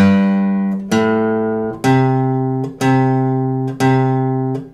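Acoustic guitar picking single low bass notes slowly, about one a second, each left to ring: the third fret of the sixth string (G), the open fifth string (A), then the third fret of the fifth string (C) three times.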